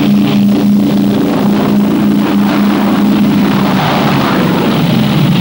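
Fairey Firefly's piston engine droning steadily at high power on the take-off run from a carrier deck.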